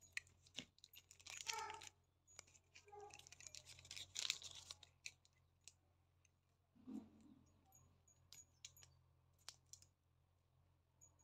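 Faint rustling and crinkling of paper and plastic packaging, with scattered small clicks, as a small metal locket keychain is unwrapped and handled.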